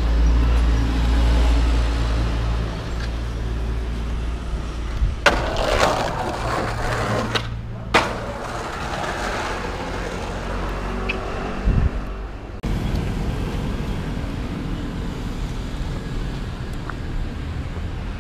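Skateboard wheels rolling over rough pavement, with a few sharp knocks of the board over a low steady rumble.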